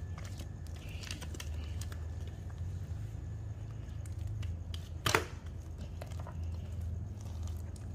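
Fluffy slime being handled, with small crackles and soft tearing sounds and one sharp snap about five seconds in, over a steady low hum.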